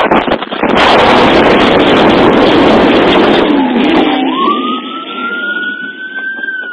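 Loud, rough rushing noise for about three seconds, then a siren starts about four seconds in, gliding up into a slow, drawn-out wail.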